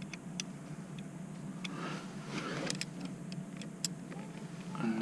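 Hand tool clinking against a metal engine bolt as it is worked onto a hard-to-reach bolt: a handful of short, sharp, irregular clicks with some faint scraping, over a steady low hum.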